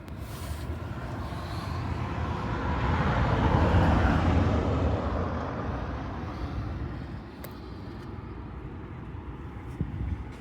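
A passing road vehicle: its noise swells to a peak about four seconds in, then fades away.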